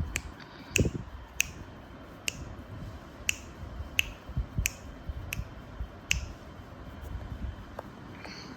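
Sleeping pug breathing, with a short low snort near the start. Over it runs a series of about nine sharp clicks, a little under a second apart, that stop after about six seconds.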